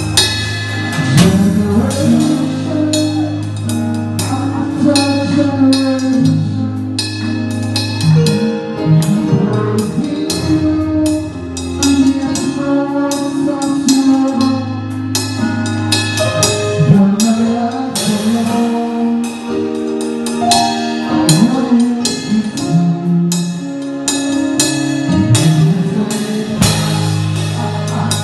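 A live band plays a gospel worship song: drum kit with busy snare, tom and cymbal hits over an electric bass line and steady sustained chords.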